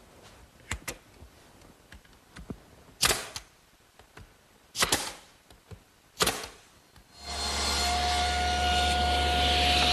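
Nails being driven into plywood on a wooden frame: a few light clicks, then three sharp double-cracked shots about a second and a half apart. About seven seconds in, a machine starts up and runs steadily with a low hum and a steady whine.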